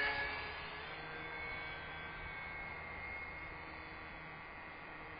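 Faint whine of the UMX Waco RC biplane's small electric motor and propeller in flight, louder at the very start and fading within a second to a steady faint drone.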